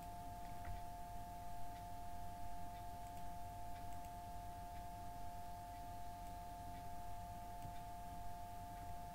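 Steady electrical background noise: two constant whining tones over a low hum and faint hiss, with a few faint clicks.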